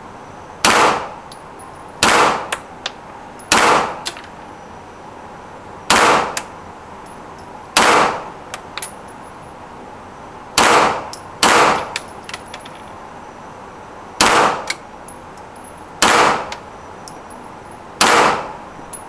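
Ten single shots from a 9mm FX-9 semi-automatic carbine, fired one at a time at an uneven pace, roughly one every one and a half to three seconds. Each report rings briefly off the indoor range, with small light clinks after some of the shots.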